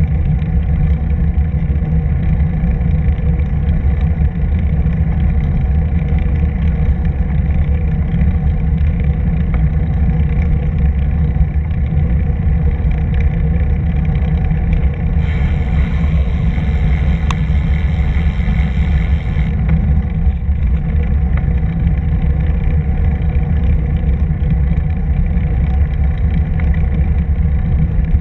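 Steady low rumble of wind and rolling noise on the microphone of a camera moving along a paved bike path. A brighter hiss joins for about four seconds around the middle.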